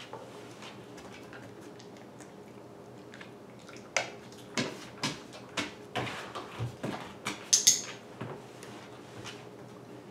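A dog's paws and claws tapping on a hardwood floor and a low wooden platform as it walks and turns: a string of about ten sharp taps in the middle of the stretch, one brighter double click among them.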